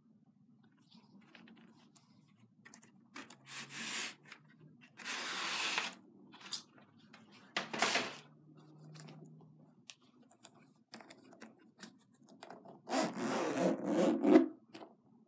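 Boots being handled, with short rubbing and rustling sounds against the box. Near the end, a boot's side zipper is pulled open in a rasp lasting about a second and a half, the loudest sound.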